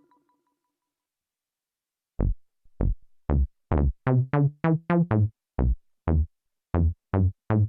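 Fred's Lab Manatee synthesizer playing a percussive, drum-machine-like preset. Short pitched hits with a deep low thump come in an uneven rhythm, starting about two seconds in after a silent opening.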